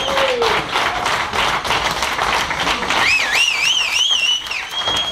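Dense, rapid claps and taps. About three seconds in, a high whistle warbles up and down for a second and a half, then holds one steady note near the end.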